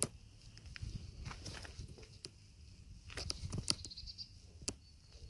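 Footsteps and rustling through dry grass and gravel, a string of irregular short crunches and clicks over a low rumble of wind and handling on the microphone.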